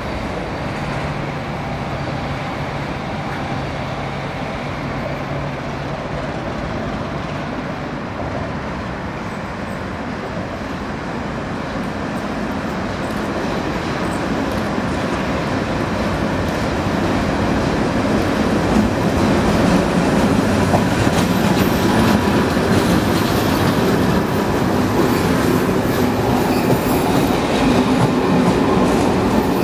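Czech class 749 diesel locomotive approaching and passing close by; its sound grows steadily louder over the first twenty seconds. Passenger coaches then roll past with wheels clicking over the rail joints.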